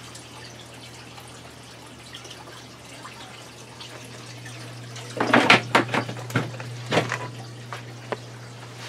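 Water trickling from the return drain pipe into the hydroponic reservoir tub, over a steady low hum. A run of sharp knocks and clatters about five to seven seconds in is the loudest part.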